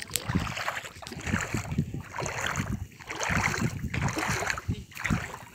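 Shallow lake water sloshing and splashing around a person's legs as he wades, one surge after another with each step.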